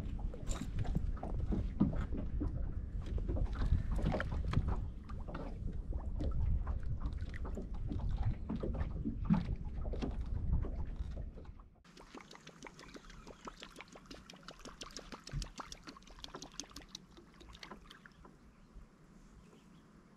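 Knocks, thumps and footsteps on a bass boat's deck over a low wind rumble on the microphone while a northern pike is handled and lowered over the side. About twelve seconds in, the sound drops abruptly to faint scattered clicks.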